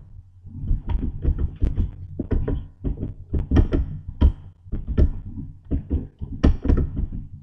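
Computer keyboard being typed on: a quick, irregular patter of key taps, several a second, in short runs with brief pauses.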